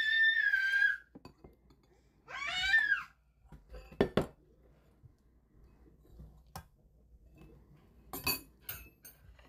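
Metal spoons clinking and scraping against a stainless steel pot and ceramic bowls while rice is served, a few sharp clinks spread out over the second half. Near the start there are two high-pitched squeals, the first about a second long, the second shorter and rising then falling.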